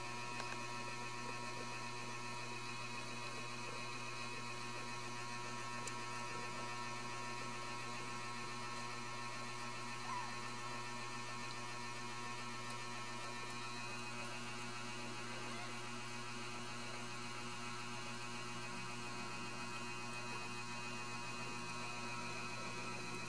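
Steady electrical mains hum: a low drone with many constant tones over a faint hiss. One short faint sound about ten seconds in.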